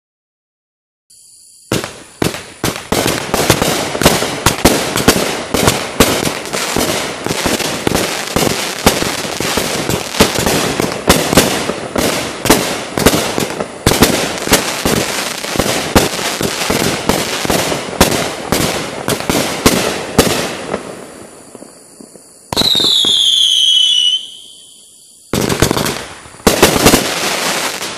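Legend Fireworks Venom 500g consumer cake firing: a rapid, dense volley of shots and crackling bursts starts about two seconds in and runs for nearly twenty seconds. It is followed by a single falling whistle, then two more short bursts near the end.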